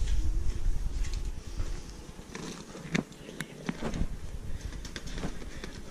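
Low rumble of a handheld camera being carried about, then a few scattered light clicks and knocks.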